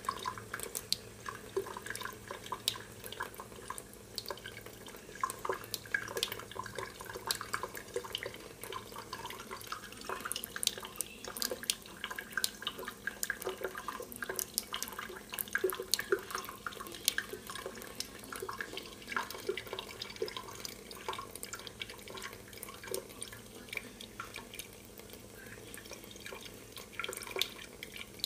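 Thin stream from a kitchen faucet trickling into a stainless steel sink, with many irregular drips and small splashes.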